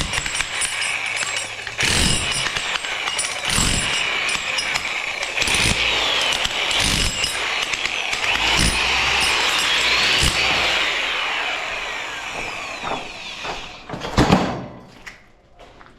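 A power tool running steadily, with repeated knocks, dying away near the end after one loud thump.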